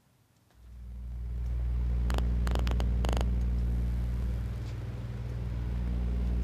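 An interactive kinetic wall of flexible rods switching on as someone approaches: a low steady mechanical hum swells in about half a second in and holds, with a short run of sharp clicks and rattles from the moving rods about two to three seconds in.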